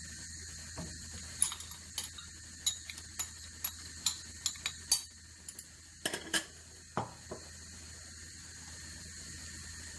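Kitchen utensils tapping and clinking against a stainless steel pot of hot soy milk as it is stirred with a wooden spoon: a dozen or so sharp, uneven taps over about six seconds, with a steady hiss underneath.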